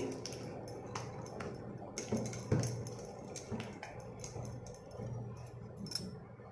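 A hand beating thick wheat-flour batter in a stainless steel bowl: irregular wet slaps and squelches, with light clicks against the bowl.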